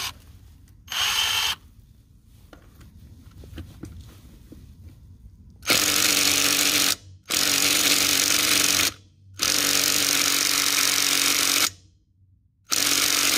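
Hart 20V brushed impact driver hammering on a truck lug nut torqued to 120 foot-pounds. There is a brief blip about a second in, then four trigger pulls of one to two seconds each with short pauses between. The nut has not yet broken loose.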